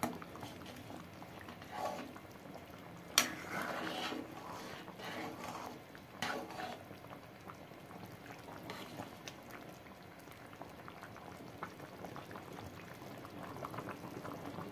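Thick chicken gravy bubbling and simmering in a steel kadai, with a few sharp clicks of a ladle against the pan, the clearest about three and six seconds in.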